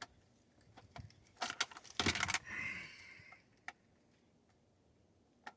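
Scattered clicks and a brief rattle of small hard parts being handled, loudest in a cluster about two seconds in, then single clicks.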